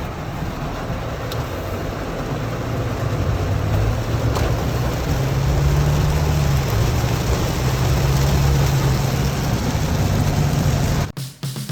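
Car on the road: steady engine hum and road noise, a little louder about four seconds in, cutting off suddenly near the end.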